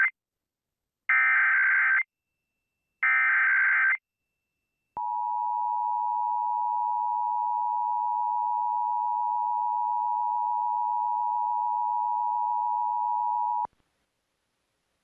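Emergency Alert System SAME header: the tail of one screechy digital data burst, then two more bursts about a second long, a second apart. After a pause comes the EAS two-tone attention signal, a steady tone held for about nine seconds that cuts off abruptly, opening a statewide Required Monthly Test alert.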